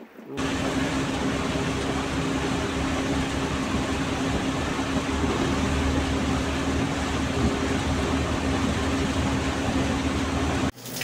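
Steady drone inside a vehicle's cabin driving on a wet road in heavy rain: engine and tyre noise with a constant hum, rain on the windshield. It starts abruptly a moment in and cuts off suddenly shortly before the end.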